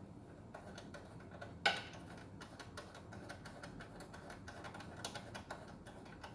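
Irregular series of small metallic clicks and ticks from hand tools and bolts as a motorcycle side cover is bolted on, with one louder knock about a second and a half in.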